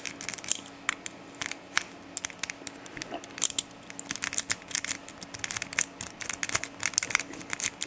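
Snake pick raking the pin tumblers in the keyway of a Master 194D padlock: a rapid, irregular run of small metallic clicks and scrapes as the pins are worked under light turning pressure.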